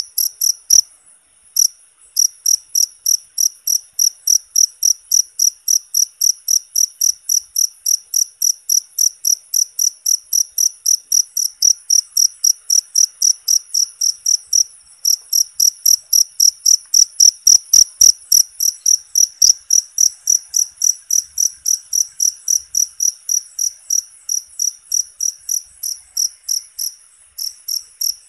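Cricket chirping in a fast, even rhythm, about three to four short high-pitched chirps a second, with a few brief breaks.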